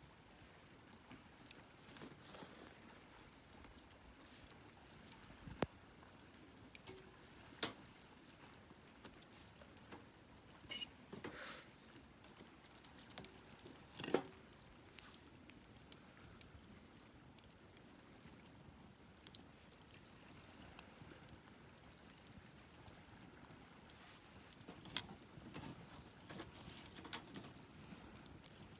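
Wood fire crackling faintly, with sparse, irregular sharp pops over a low hiss.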